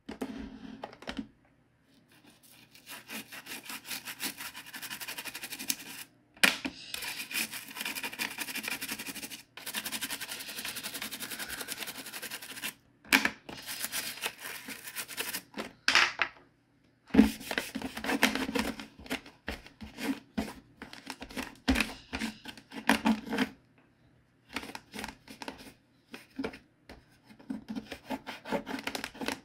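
Toothbrush scrubbing the wet plastic top and ridged buttons of a GE clock radio in quick back-and-forth strokes, with short pauses between runs. In the second half a cloth rubs over the plastic case.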